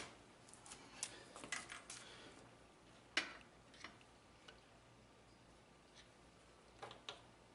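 Faint small clicks and taps from handling a marker and a drill bit while marking the bit's depth, with one sharper click about three seconds in.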